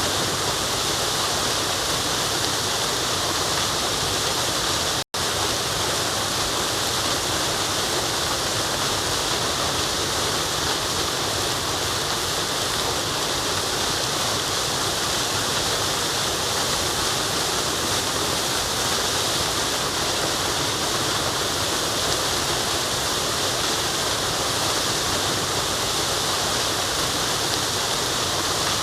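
Forest waterfall: a steady, even rush of falling water. It cuts out for an instant about five seconds in.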